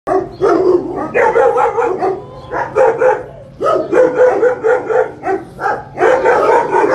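French Bulldog vocalising excitedly: a run of about a dozen short, pitched, wavering yowls and whines, one after another with brief gaps.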